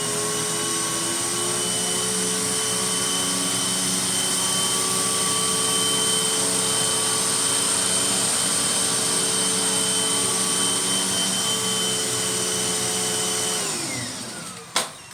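Hoover Windtunnel Max upright vacuum cleaner running steadily, a motor whine over a hiss of rushing air, as it makes a cleaning pass. Near the end it is switched off and the motor winds down with falling pitch, followed by a single sharp click.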